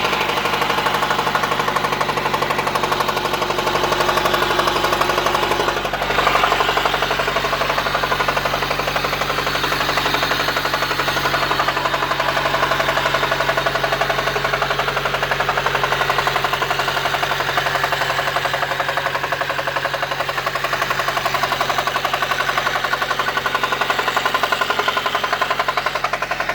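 Honda D16Y1 four-cylinder engine running with a hard, rapid knock, a sign of lost oil pressure; the owner asks whether it is rod knock. The engine rises briefly about six seconds in and otherwise runs steadily.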